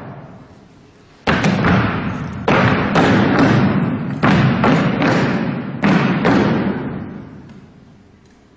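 Heavy thumps, about eight in irregular succession, each ringing on and dying away slowly in a large hall.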